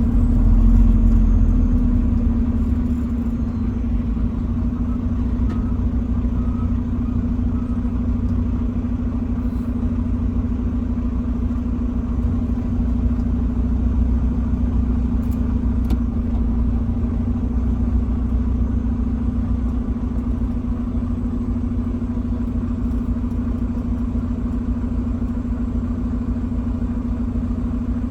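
Heavy truck driving at a steady speed: a continuous low engine drone with road rumble, a little louder for the first couple of seconds and then even.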